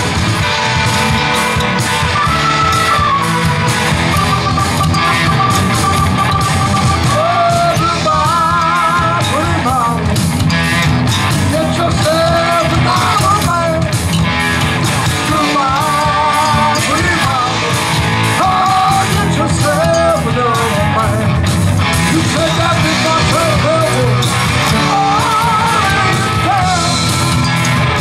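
Live rock band playing loudly: distorted electric guitars, bass and drums, with a man singing lead from about eight seconds in.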